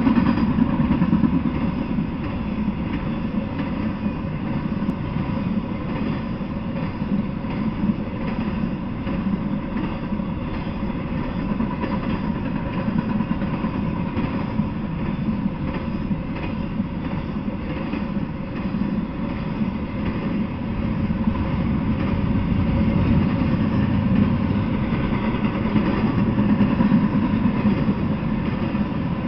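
Intermodal freight train rolling past: a steady rumble and clatter of its loaded flatcars and well cars riding on steel wheels over the rails, growing a little louder in the last third.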